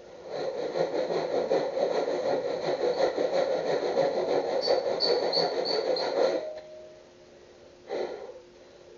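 Hand plane shaving along the length of a wooden plank: one long continuous scraping stroke that cuts off suddenly a little over six seconds in, then a short scrape near the end.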